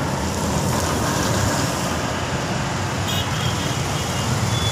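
Steady road traffic noise, with a brief faint high tone about three seconds in.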